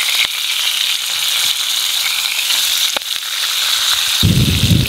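Fish fillets and baby pak choy sizzling in hot olive oil in a frying pan: a steady hiss with scattered crackles and a couple of sharp clicks. About four seconds in, a low rumble of wind on the microphone joins in.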